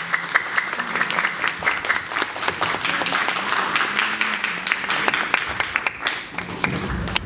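Theatre audience applauding, many hands clapping at once; the clapping thins out near the end.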